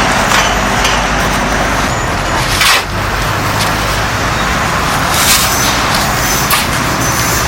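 An engine running steadily under loud clattering, scraping noise, with a few sharp knocks.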